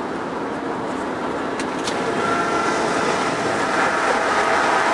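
Freight train's intermodal cars rolling alongside, a steady rumble mixed with the road noise of the car pacing it, growing louder about two seconds in. Two brief clicks come just before that.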